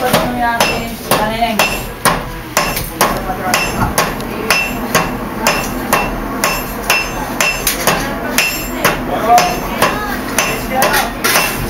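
Hand hammers forging red-hot steel on an anvil: a steady run of blows, about two a second, each with a short metallic ring.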